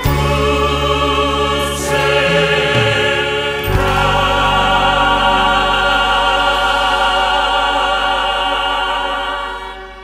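Choir singing a Korean worship song over instrumental accompaniment, moving to a long held closing chord about four seconds in that fades away near the end.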